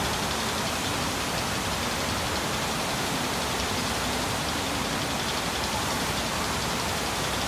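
Water rushing steadily down the drop chute of a water flume ride.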